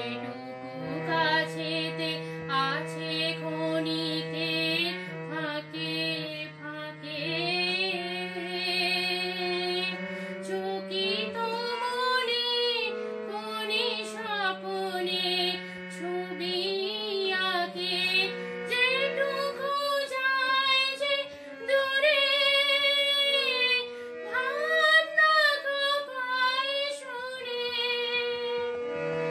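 A woman singing a melodic song in Bengali style, accompanying herself on a harmonium that holds steady, sustained notes beneath her voice.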